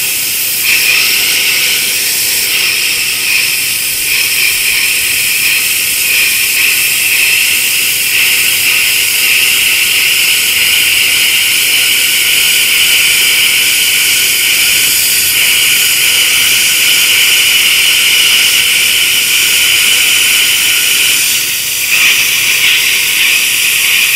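Plasma cutter of an NBC-288 multi-process welder cutting through 12 mm steel plate: a steady, loud hiss of the plasma arc, dipping briefly near the end.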